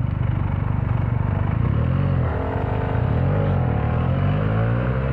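Benelli 302's parallel-twin engine and exhaust under way. The pitch climbs and falls twice as it is revved and shifted, then rises steadily near the end as the bike accelerates.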